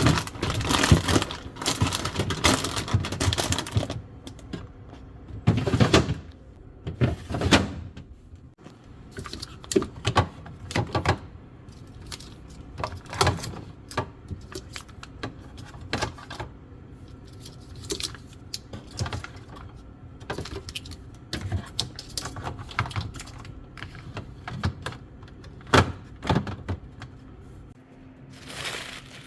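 Groceries being loaded into a fridge: a string of clicks, taps and knocks as containers and packages are set on the shelves, busier in the first few seconds, with a few louder thumps.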